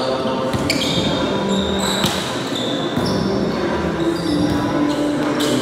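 Indoor volleyball rally: the ball is struck about three times with sharp smacks, echoing in a large gym. Short high squeaks, like sneakers on the court floor, come between the hits.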